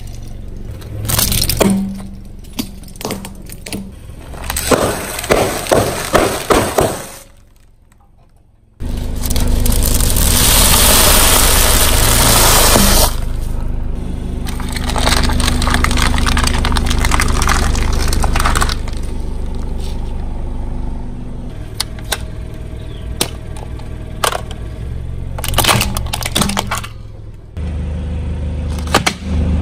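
Car tyre rolling over brittle objects and crushing them: a run of sharp cracks and crunches. After a short break comes a loud rushing noise for a few seconds, then the car's engine running steadily with occasional crackles.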